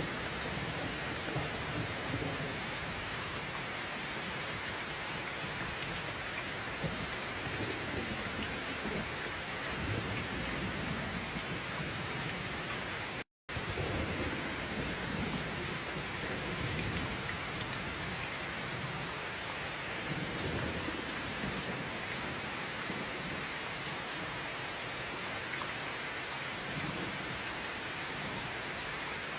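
Steady heavy rain falling, with low rumbles that swell and fade every few seconds. The sound cuts out completely for a split second about 13 seconds in.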